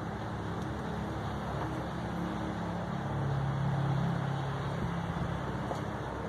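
A steady low rumbling hum, swelling about three seconds in and easing off again about two seconds later.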